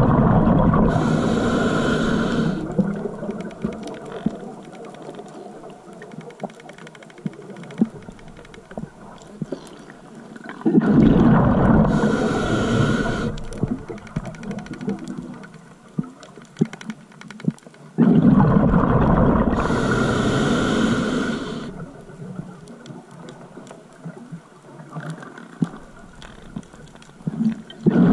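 Scuba diver breathing through a regulator underwater: a rush of exhaled bubbles and a hiss, one breath roughly every eight to ten seconds, with quieter water between breaths.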